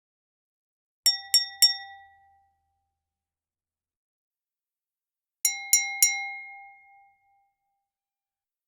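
A wine glass tapped three times in quick succession, then again three times about four seconds later, each tap ringing clearly and fading out: the call for attention before a toast.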